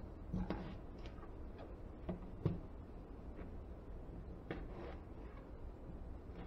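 A few scattered light knocks and clicks of a kitchen knife and a potato on a plastic cutting board, the sharpest about two and a half seconds in, over a faint low hum.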